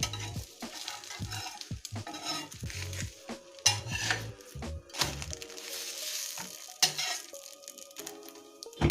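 A maida flatbread frying on beaten egg in a hot oiled pan, sizzling, while a spatula knocks and scrapes against the pan many times.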